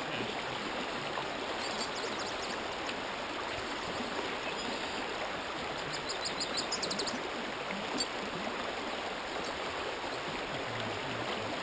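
Shallow creek water flowing over riffles, a steady, even rush and burble of moving water.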